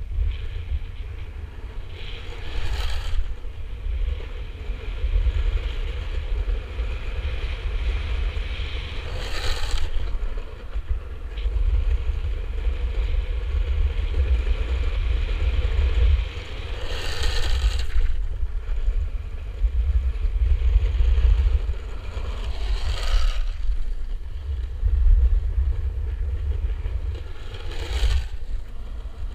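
Longboard wheels rolling fast on asphalt under heavy wind rumble on the microphone. About five times a harsher scraping surge rises and fades over a second or so, typical of freeride slides with the wheels skidding sideways to check speed.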